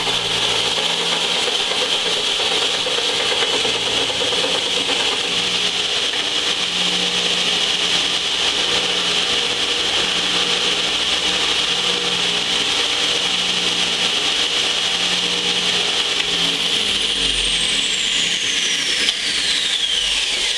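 Large heavy-duty belt sander running, its abrasive belt grinding the warped flange face of a cast-iron exhaust manifold flat: a steady, loud grinding hiss. A thin whine falls in pitch over the last few seconds.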